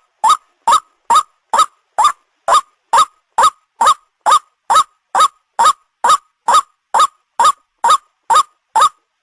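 White-breasted waterhen (ruak-ruak) call used as a bird-hunting lure: a short hoarse note repeated evenly a little more than twice a second, each note rising then falling in pitch.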